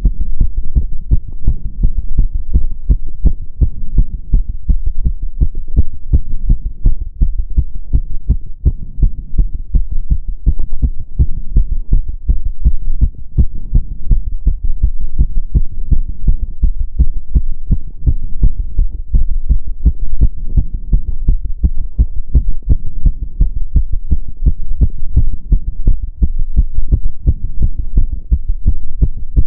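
Human heart beating fast, a steady rapid train of low thuds. The rate is raised by step-up exercise.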